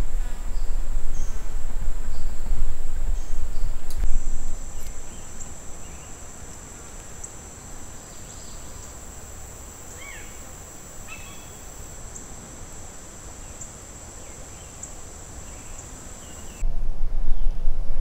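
Steady high-pitched drone of insects singing in a summer forest, with a few faint bird chirps about ten seconds in. A low rumble sits under it for the first few seconds and comes back suddenly near the end.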